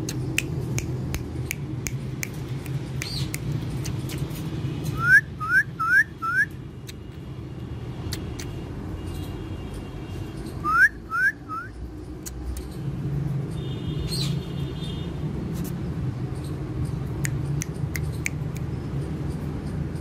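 Rose-ringed parakeets calling: two quick runs of short, rising whistled notes, four in a row about five seconds in and three more about eleven seconds in, over a steady low background hum and scattered small clicks.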